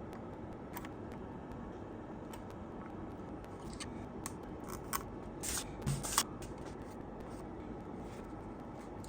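A few light clicks and short scraping sounds, clustered a little past the middle, over a steady low background hiss.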